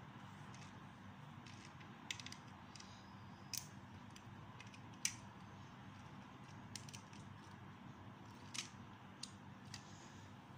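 Plastic Lego bricks clicking and knocking as hands press pieces onto a small model: about half a dozen short, scattered clicks over a faint steady hum.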